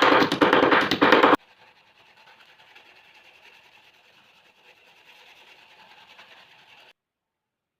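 Background music that stops abruptly about a second and a half in, leaving only faint room noise, then dead silence near the end.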